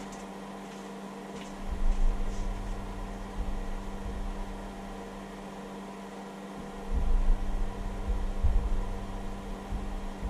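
Hobby battery charger's cooling fan running with a steady hum while the charger works at about 83 W. Irregular low rumbles come and go under it, strongest from about seven seconds in.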